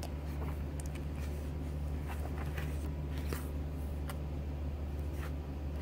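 Paper pages of a handmade journal being turned and brushed by hand: a few soft, short rustles over a steady low hum.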